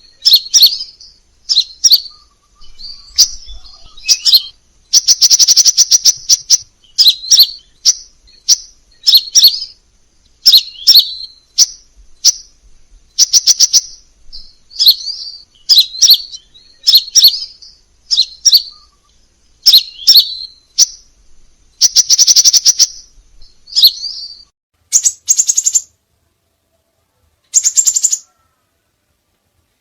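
Crimson sunbird singing: a run of short, high, sharp chirps and twittering phrases about once a second, with longer rapid buzzy trills about five seconds in and again around twenty-two seconds.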